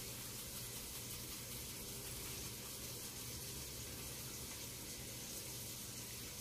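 Faint, steady sizzle of onions frying in a pan.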